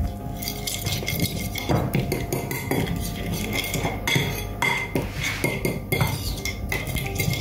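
Metal fork stirring a wet spice paste in a ceramic bowl, scraping and clinking against the bowl in many quick strokes.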